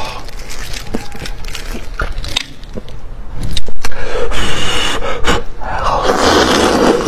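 Close-miked eating of a big, fatty fish head: wet mouth sounds of chewing and sucking with sharp clicks, growing louder and noisier from about three and a half seconds in.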